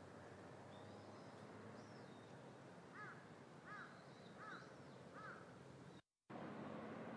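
A crow cawing four times in quick succession, about three-quarters of a second apart, over a faint steady harbour hum. Fainter high chirps from small birds are heard too. Near the end the sound cuts out completely for a moment.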